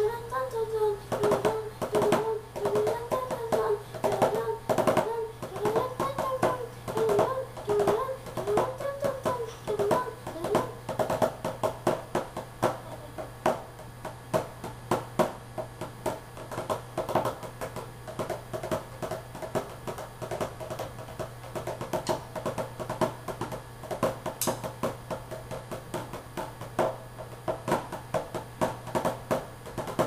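Background music: a song with a sung melody over percussion, the wavering voice line most prominent in the first ten seconds or so.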